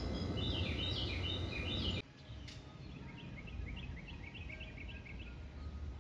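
Songbirds chirping in repeated short notes over a steady low rumble. About two seconds in, the rumble drops away abruptly, and a quick run of chirps follows over a quieter background.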